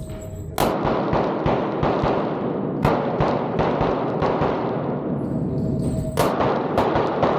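Background music, with about four sharp pistol shots standing out from it.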